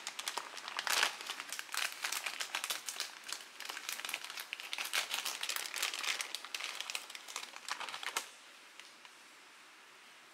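Crinkly plastic packet of dried vermicelli noodles being handled and opened, the dense crinkling stopping about eight seconds in.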